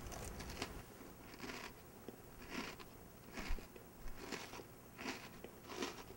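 A person chewing something crunchy with the mouth close to the microphone: soft crunches about once a second.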